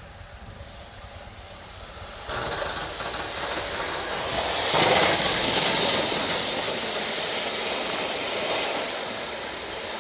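Live-steam model of a JNR C57 steam locomotive running past with its train, a fast clatter of beats. It jumps up suddenly about two seconds in, is loudest as it passes around five seconds in, then fades as it draws away.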